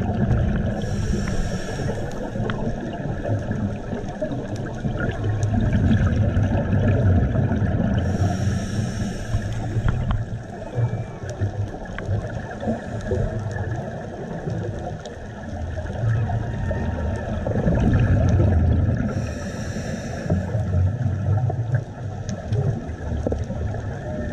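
Underwater sound on a scuba dive: a steady low rumble, broken three times by a short hissing rush of exhaled scuba regulator bubbles, about a second in, about eight seconds in and about nineteen seconds in.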